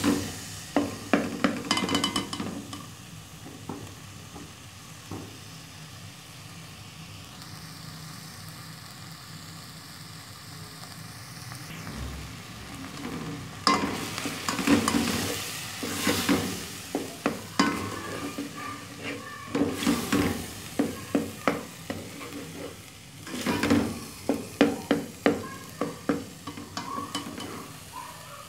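Chopped onions and tomatoes frying in an aluminium pot, with a spoon stirring and scraping against the metal in quick strokes. The stirring comes in two bouts, near the start and from about halfway on, with a softer steady sizzle between them.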